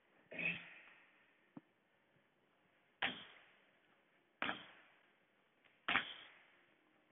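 Four short thuds about a second and a half apart, each with a brief rushing tail, with a small click between the first two: a person's landings on the floor while doing bodyweight workout reps.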